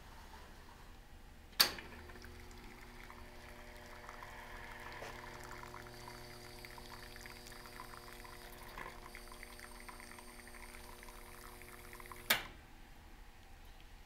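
A Mairali two-group commercial espresso machine's group switch clicks on about a second and a half in. Water then pours from the group head into a plastic tub over a steady machine hum, and a second click near the end switches it off.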